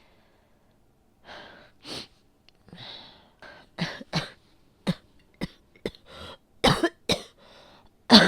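A person coughing in a fit, starting about a second in: around nine sharp coughs with softer, breathy sounds between them, the coughs growing louder towards the end. The uploader tags the cough as asthma.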